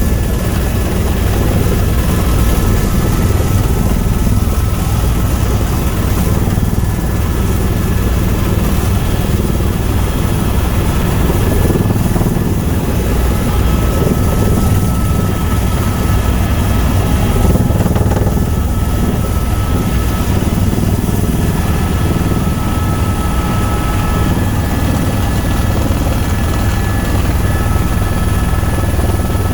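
Tour helicopter in flight: a steady, unbroken drone of rotor and turbine engine, with a few thin steady whines above it.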